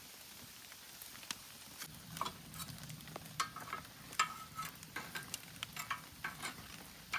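Wood fire crackling and hissing inside a small metal wood stove while metal tongs poke and scrape in the firebox, with sharp clicks and a few short metallic clinks, most of them in the second half.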